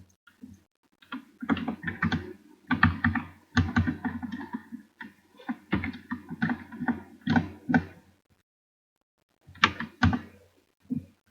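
Irregular runs of quick taps and clicks, dense for several seconds, then a pause and a few more clicks near the end.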